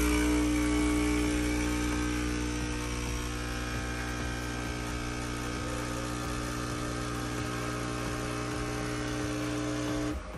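Capsule espresso machine's pump buzzing steadily while it brews a shot into the cup, then cutting off abruptly near the end.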